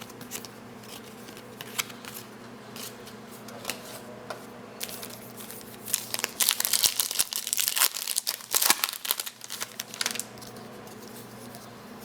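A trading-card pack's wrapper being crinkled and torn open by hand. Light handling clicks for the first few seconds, then a dense crinkling from about six to ten seconds in.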